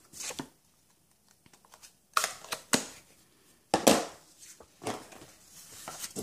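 Card stock handled and slid across a paper-covered craft mat: a series of short rustles and taps, the loudest about two and four seconds in.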